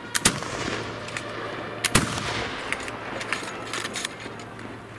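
Two black-powder shots from flintlock Baker rifles, one just after the start and the second about 1.7 s later, each with a long echoing tail. Lighter clicks and knocks come in between and after.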